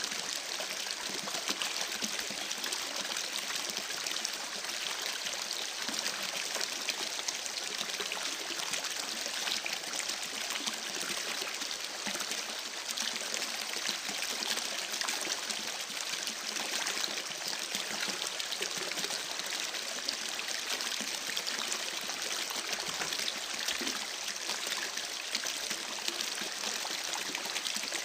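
Shallow stream babbling steadily, with a dense patter of small trickles and splashes over a constant rush of water.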